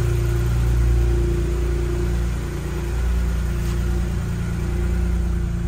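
Toyota GR Yaris G16E-GTS 1.6-litre turbocharged three-cylinder engine idling steadily from cold, just after fitting Kelford camshafts. The idle is even and smooth, not lumpy, with a slight dip in level about two and a half seconds in.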